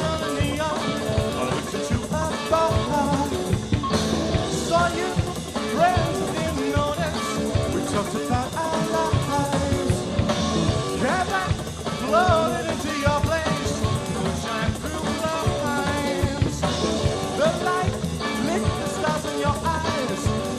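Live rock band playing a song, with drums striking steadily under guitars and bending melody lines.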